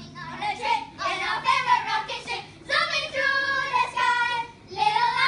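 Children singing loudly in phrases of held, wavering notes, with two short breaks between phrases.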